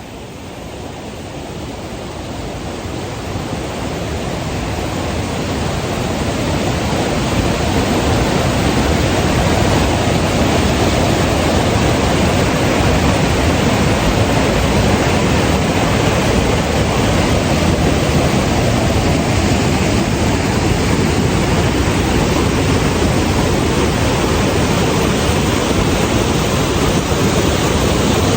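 Rushing river water, a steady loud noise of a mountain river running over rocks, growing louder over the first several seconds and then holding steady.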